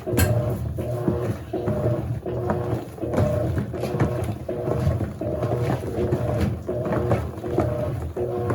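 Electrolux LAC16 top-loading washing machine agitating in its wash stage: a rhythmic motor whir and water slosh repeating at an even pace, roughly once a second.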